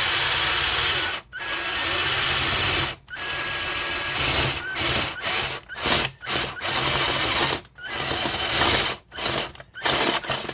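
Power drill boring a hole through a hubcap, run slowly in bursts: one long run, then a string of shorter trigger pulses with brief stops between them.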